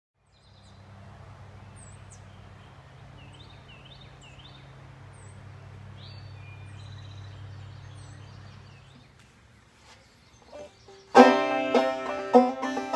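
Short high chirps, typical of birds, over a steady low outdoor background; then, near the end, a banjo starts up loudly, played clawhammer style.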